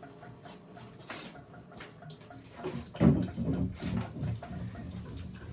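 Water splashing and dripping in a bathtub around a freshly bathed wet dog, with a louder burst of splashing about three seconds in.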